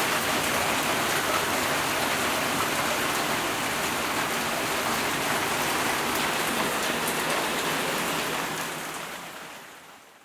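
Steady rain falling, an even hiss with scattered drop ticks, fading out over the last couple of seconds.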